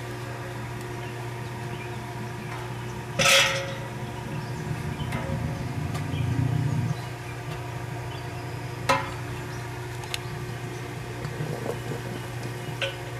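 Small electric brewing pump humming steadily while it pumps the fly sparge, with the hum swelling for a couple of seconds in the middle. One loud knock about three seconds in, and a few lighter clicks later.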